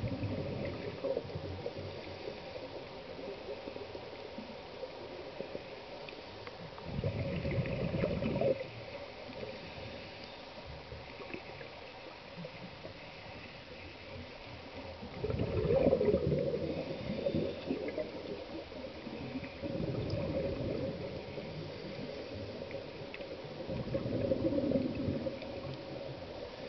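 Scuba regulator exhaust bubbles heard underwater: the diver breathes out in bubbling, gurgling bursts of a second or two, several times a few seconds apart, over a faint steady hum.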